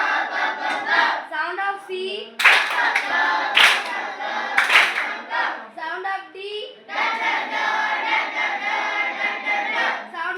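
A group of voices singing together, with three loud sharp sounds about a second apart in the middle.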